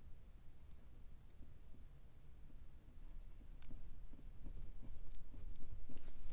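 Paintbrush stroking oil paint onto a primed panel: soft, scratchy, irregular strokes that grow a little louder about halfway through.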